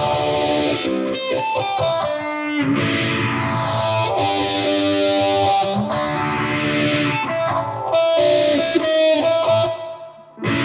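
Electric tenor ukulele played distorted through fuzz and overdrive into a guitar amp: sustained chords with a slow sweep in the tone that repeats every few seconds, and quick picked runs in between. The sound dips briefly near the end.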